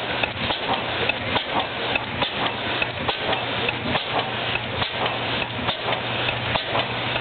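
Large old horizontal stationary gas engine running, its valve gear clattering in a rapid, steady run of sharp clicks and knocks over a low hum.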